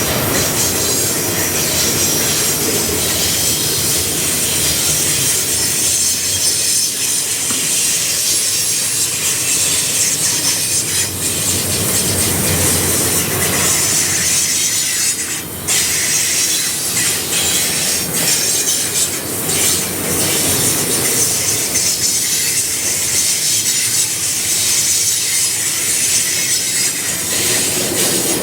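Freight cars of a long CN freight train rolling past, steel wheels on the rails making a steady loud rumble and high hiss with a few sharp clicks, and some wheel squeal on the curve.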